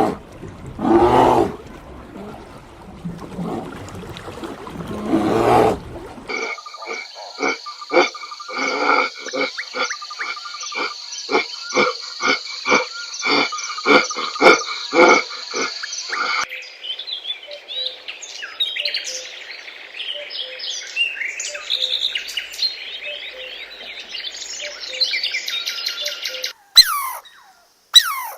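A run of animal calls: a few loud, low calls in the first six seconds, then a long stretch of rhythmic croaking, about one to two croaks a second over a steady high trill, then busy chirping birdsong, with a few sharp high calls near the end.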